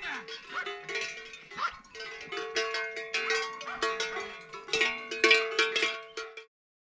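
Many livestock bells clanking irregularly and overlapping, as from a grazing flock on the move, with ringing metallic tones. The sound cuts off suddenly near the end.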